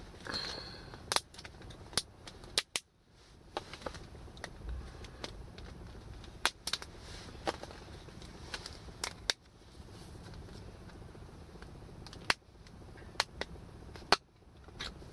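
A dozen or so sharp clicks and knocks at uneven intervals, some in quick pairs: utensils being handled on a wooden chopping board, including the knife being set down.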